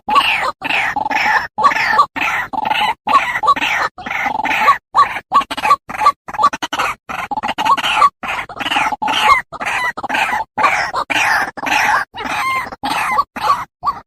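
White-breasted waterhen calling: a loud, rapid, continuous run of repeated croaking calls, broken by many short silences.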